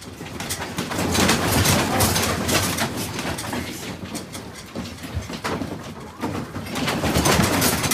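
A room and its contents rattling, clattering and creaking under strong earthquake shaking, over a low rumble. The noise swells about a second in and again near the end.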